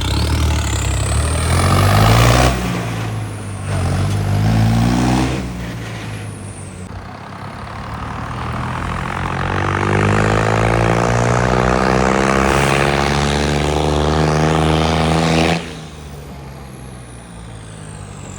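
Diesel tractor engine revved hard twice in short bursts, then held while the revs climb slowly over several seconds before cutting off suddenly.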